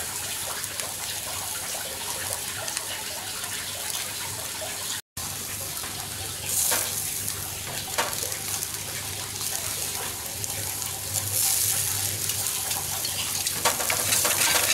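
Turkey breast sizzling over hot charcoal on a grill, a steady hiss. Metal tongs click against the grill a few times as the pieces are turned, about halfway through and again near the end.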